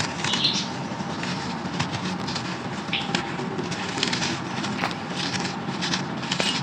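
Crunchy brown sand crumbling in a clay pot: a dense, continuous run of gritty crunches and small crackles, with a steady hum underneath.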